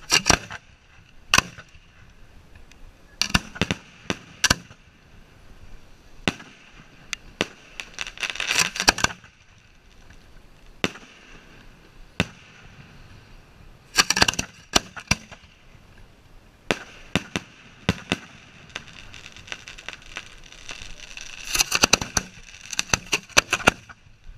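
Fireworks going off as they are fired from ground racks of mortar tubes: sharp reports, some single and some in quick clusters, coming every few seconds.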